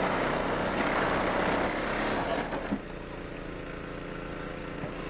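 An engine running steadily. A louder rushing noise on top of it drops away about two and a half seconds in, leaving the even engine hum.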